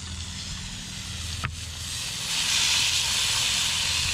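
Venison roast sizzling as it sears in hot vegetable oil in a cast-iron Dutch oven, the sizzle swelling about two seconds in as the roast is turned onto its unseared side. A single metal click about a second and a half in.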